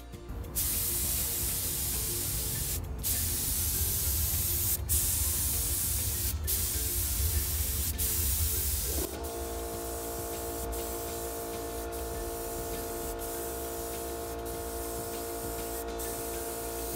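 Gravity-feed paint spray gun hissing as it sprays paint, with a few brief breaks where the trigger is let off. About nine seconds in, an air compressor kicks on and runs with a steady hum under the hiss.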